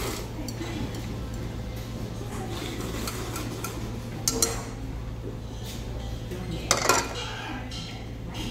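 Metal chopsticks clinking and scraping against a small ceramic bowl while noodles and broth are slurped from it, with sharper clinks about four and a half seconds in and again near seven seconds.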